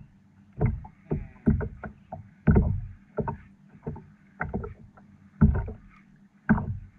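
Irregular knocks and thumps on a small fishing boat, about a dozen of them, over a faint steady low hum.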